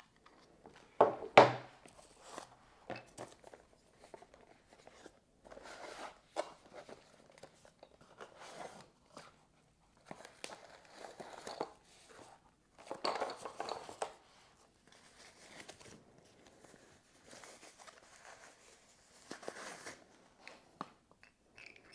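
Unboxing handling noise: tissue paper and a cardboard box being handled and crinkled, with a sharp knock about a second in, the loudest sound.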